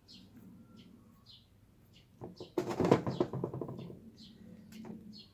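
A small bird chirping repeatedly, short high chirps about every half second, with a loud burst of rustling and clattering from about two to four seconds in.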